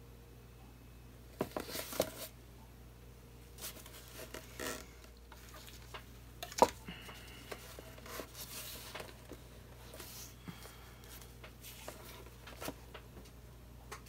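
Handling noise from a wet acrylic pour canvas being moved about on a work table: scattered light knocks, taps and short rustles, with one sharp click about six and a half seconds in.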